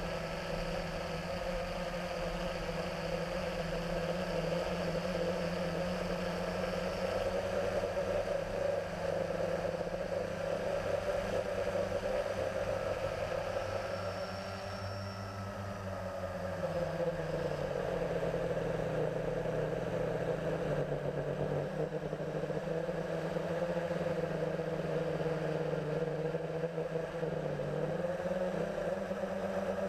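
Blade 350 QX2 quadcopter's four brushless motors and propellers humming steadily in flight, picked up by a GoPro mounted on the drone. The pitch shifts with throttle and dips for a few seconds about halfway through before climbing back.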